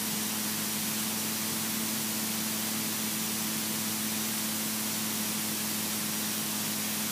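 Steady hiss with an even low hum underneath: the Robin DR400's engine, propeller and airflow heard in the cockpit on final approach.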